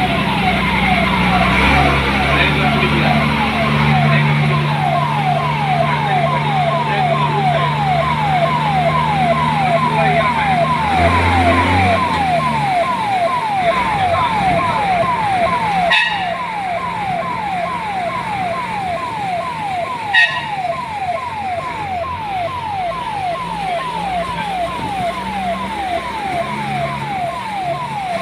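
Vehicle's electronic warning siren sounding a rapid falling tone, repeating about twice a second. An engine runs underneath for the first half, and there are two sharp knocks later on.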